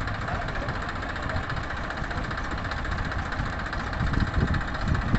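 Tractor diesel engine running steadily at low revs, with a few heavier low pulses near the end.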